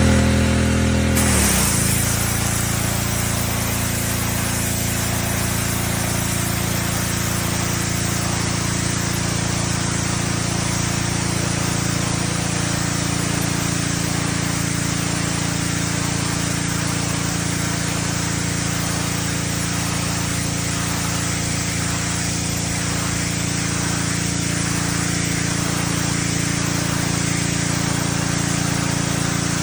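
Gas-engine pressure washer running with its spray jet hissing against a surface. The engine note drops about a second and a half in as the spray starts, then holds steady under the load.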